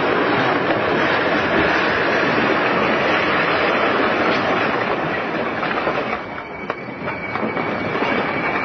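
Train running past with a loud rumbling clatter of wheels on rails. About six seconds in it eases, a few sharp clicks sound, and a steady high wheel squeal sets in.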